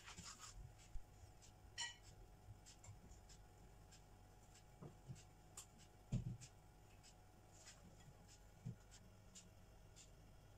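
Quiet room with faint handling noises as fingers tear smoked salmon slices in a ceramic bowl: small scattered clicks and scrapes, a brief clink about two seconds in, and a soft thump about six seconds in.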